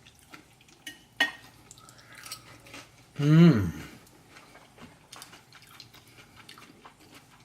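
A person chewing a cheeseburger, with small mouth clicks and a sharp click about a second in. A little past three seconds in comes one short, falling vocal sound.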